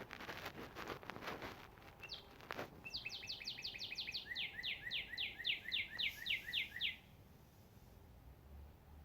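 A songbird singing a trill of about twenty quick notes, each sliding down in pitch, at roughly five a second, starting about three seconds in and lasting about four seconds. Faint rustling noise comes before it.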